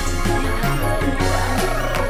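Upbeat background music with a steady beat, a moving bass line and a sliding synth melody.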